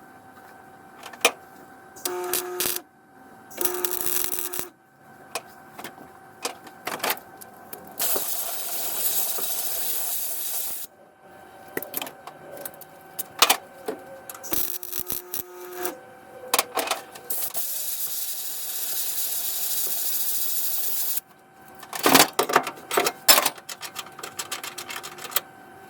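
Welder laying short welds on automotive sheet metal in repeated bursts: a steady hiss lasting from about one to four seconds each time, with pauses between. A quick run of sharp clicks and taps follows near the end.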